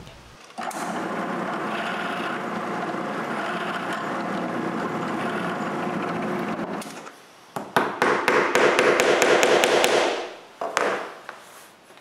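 Electric drill boring a small hole into a walnut block, running steadily for about six seconds and then stopping. After a brief pause comes a rapid run of sharp taps, about six a second, lasting a couple of seconds.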